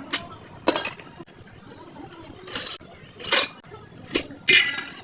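Metal tools and clutch parts clinking and knocking against each other, about six separate strikes, several with a short metallic ring.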